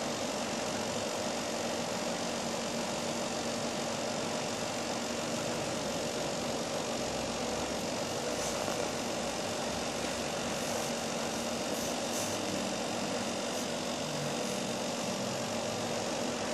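Steady background hum and hiss with a faint constant drone and no change in level, with a few faint high ticks in the middle.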